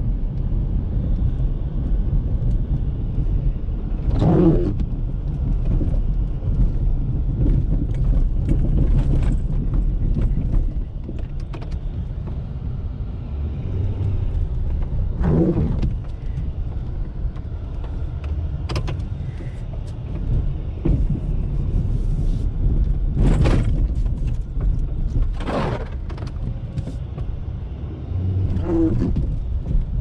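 A Ford F-350's 6.7-litre Power Stroke V8 turbo-diesel running with a steady low rumble. About five brief, louder noises rise over it, spread through the stretch.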